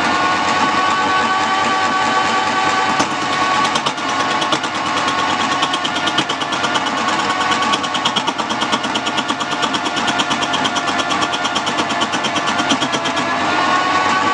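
Wood-turning lathe running with a steady motor whine, while a turning tool cuts the spinning wood and makes a fast, even clatter from about three seconds in until near the end.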